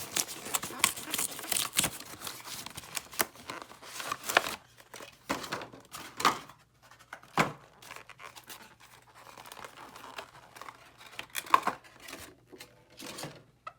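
Cardboard-and-plastic packaging of a Pokémon TCG pin collection box being torn open and handled by hand. There is dense tearing and crinkling for the first few seconds, then scattered rustles and sharp clicks.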